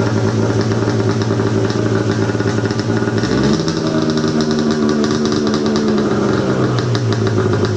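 Engine-swapped John Deere Gator UTV's 100 hp engine running through a chopped, short exhaust. It runs steadily, is revved up a little about three seconds in, holds there, and drops back toward idle near the end.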